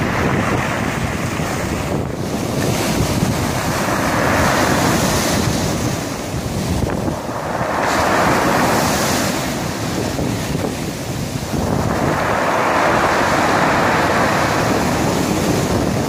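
Sea waves washing up a pebble beach, the hiss of the surf swelling three times as successive waves break and run over the stones.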